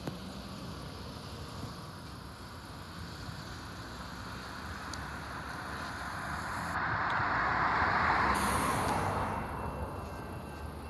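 A passing vehicle's noise swells to a peak and fades away over about four seconds, with no horn sounding.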